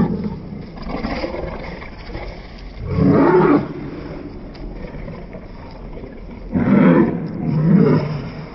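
Two Cane Corsos play-fighting, growling and snarling, with three loud growls, one about three seconds in and two close together near the end.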